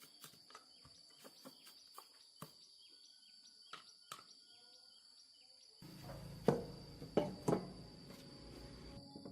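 Light clicks and taps of metal parts being handled, then from about six seconds in a low hum with three sharp knocks of metal on metal. A steady high-pitched whine sits underneath throughout.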